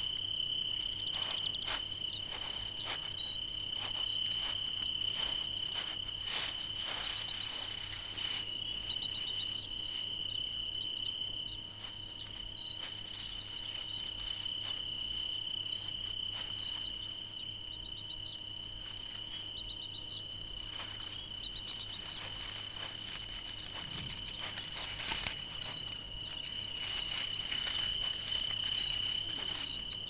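A desert insect chorus: a steady, high-pitched trill with many short, high chirps laid over it and scattered soft clicks.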